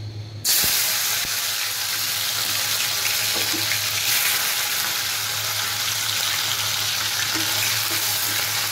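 Dried fish (shutki) dropped into hot oil in a wok: a sudden loud sizzle about half a second in, then steady frying, stirred with a spatula near the end.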